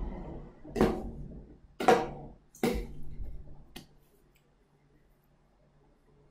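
Four sharp knocks about a second apart, the middle two loudest, followed by a faint steady low hum.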